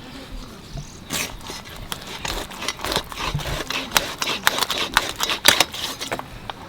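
A quick, irregular run of sharp clicks and scrapes, from about a second in until shortly before the end.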